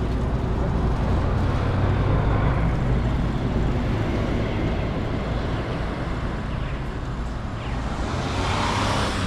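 Road traffic: a large tour coach drives past with a steady low engine hum. Near the end a small van goes by with a swell of road noise.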